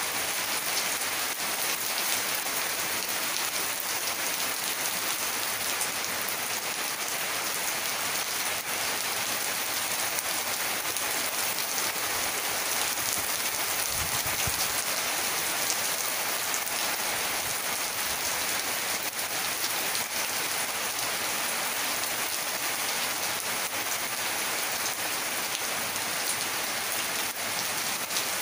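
Heavy rain pouring steadily, a dense even hiss of rain falling on the ground, roofs and foliage.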